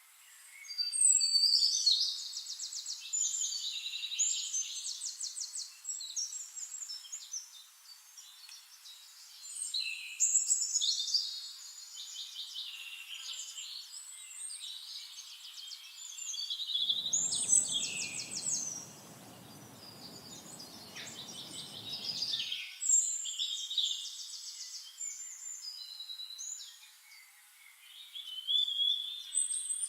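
A songbird singing: high phrases of fast trills and whistles, repeated every few seconds. A low rushing noise sounds under it for about five seconds midway.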